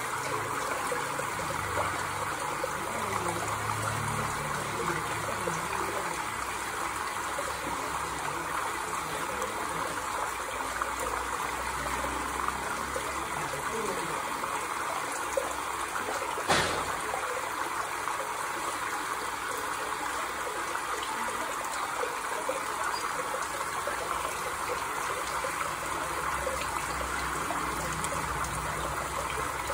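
Running water trickling steadily, with a single sharp click about halfway through.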